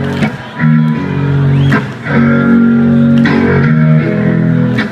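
Rock band playing live between sung lines: electric guitars and bass holding chords that change every second or two.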